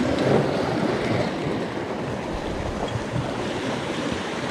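Sea surf washing in against shore rocks: a steady rush of water that swells briefly just after the start.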